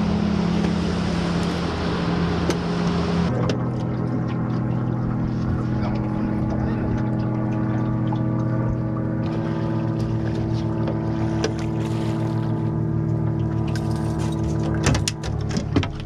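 Boat motor running with a steady hum. About three seconds in, a hiss falls away and the motor's pitch shifts, and it shifts again around nine seconds. A few clicks and knocks come near the end.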